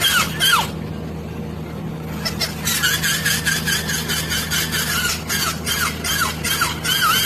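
Squeaky toy squeezed over and over, giving quick short squeaks that stop for about a second and a half near the start, then go on.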